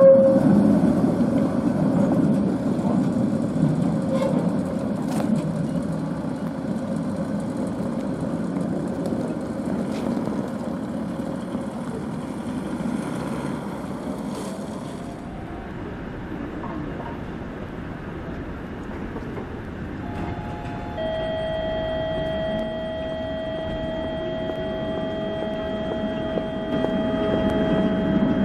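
A Tatra KT8D5 articulated tram rolling along the rails: a steady low running rumble of wheels and running gear that fades as the tram moves away. Around twenty seconds in, a few steady high tones join, and the rumble grows louder again near the end.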